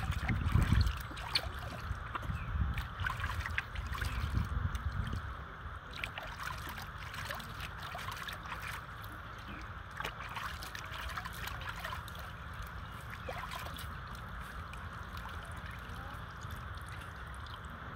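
Water splashing and sloshing in a plastic basin as a baby monkey is bathed and rinsed by hand, strongest in the first five seconds, then softer trickling and dripping.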